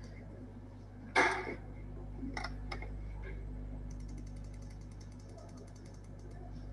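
Handling clicks over a steady low hum: a sharp knock about a second in, two lighter clicks soon after, then a fast run of small ticks from about four seconds on.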